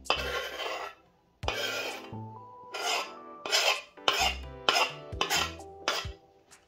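Food being grated on a metal grater: two long rasping strokes, then a run of about eight shorter, quicker strokes. Background music with sustained tones plays underneath.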